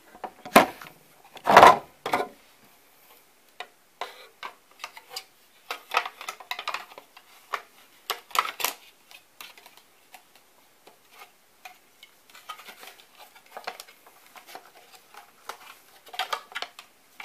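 Irregular clicks, knocks and light rattles of a floppy drive being handled and pushed into its drive mount in a Macintosh IIci. Two heavy thumps about a second in.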